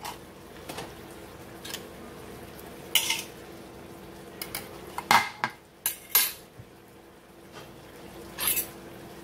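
Spatula and bowl clinking and scraping against a cast-iron skillet as chicken breasts are moved back onto the simmering peaches: a handful of separate clatters, the loudest about five to six seconds in, over a faint steady hum.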